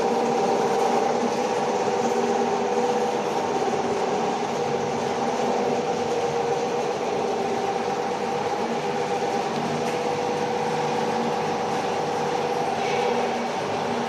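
Steady mechanical drone of workshop machinery: an even noisy wash with a few held humming tones, unchanging throughout.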